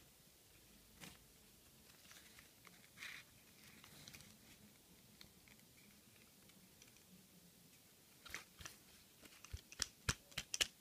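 Faint rustling and crackling handling noises, then a quick run of sharp clicks near the end.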